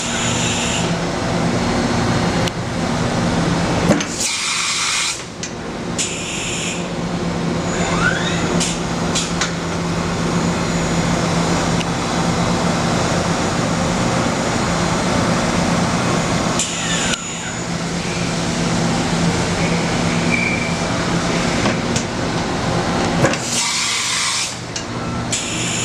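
Matsuura MC-760VX CNC vertical machining center running a machining cycle: a steady mechanical hum and hiss, broken by several short bursts of hissing noise and a couple of brief rising whines.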